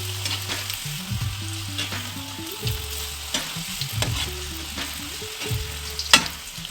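Filled dough pastries shallow-frying in a little hot oil, sizzling and crackling steadily, with a sharp tap about six seconds in.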